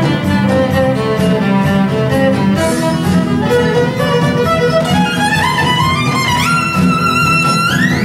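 Violin playing a melody. In the second half the notes climb in upward slides, reaching a high held note near the end.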